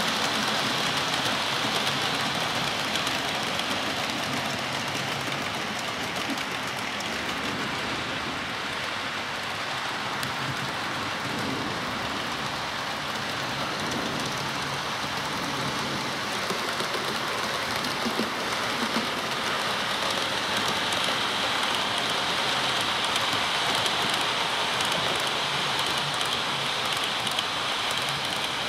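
OO-scale model trains, an InterCity 125 HST set among them, running on the layout's track: a steady rushing hiss and rumble of wheels on rails and model motors, with a faint steady high whine over it.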